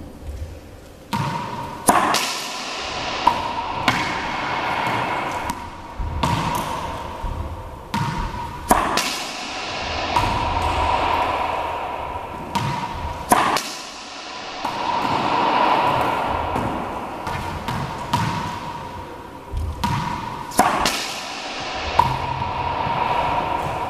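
Racquetball being hit against the front wall of a closed court: about a dozen sharp cracks of racquet on ball and ball off wall and hardwood floor, spaced irregularly, each ringing in the court's echo, over a humming tone.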